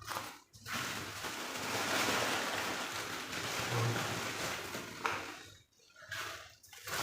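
Steady hissing noise like rain, broken by a short drop-out at the start and another near the end.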